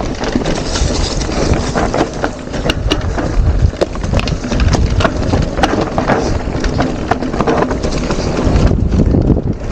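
Mountain bike riding down a rough trail: a continuous rush of tyre and wind noise on the microphone, with many sharp, irregular knocks and rattles from the bike jolting over the ground.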